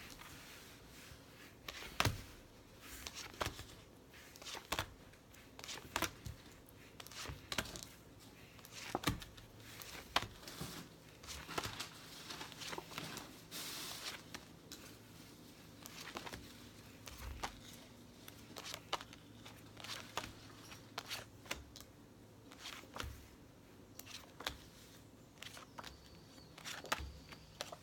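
A deck of fortune-telling cards shuffled and handled by hand: irregular soft slaps and clicks of cards against each other, with a patch of papery rustling about halfway through.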